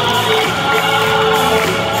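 Live pop music: a children's choir and a male vocal group singing together over a live band.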